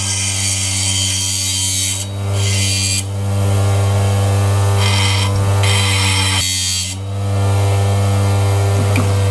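Bench grinder running with a steady hum while a high-speed steel tool bit is held to the wheel, giving a hissing grind. The grind comes in passes, breaking off briefly about two and three seconds in and easing about seven seconds in as the bit is lifted away.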